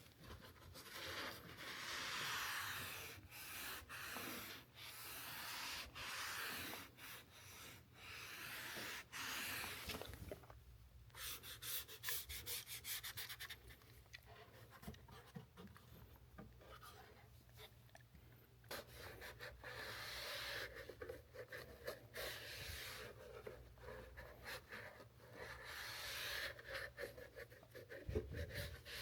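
Faint rubbing strokes of rubber protectant being worked onto a car's rubber weatherstrip seal, swishing back and forth, with a run of quick small clicks about 11 seconds in.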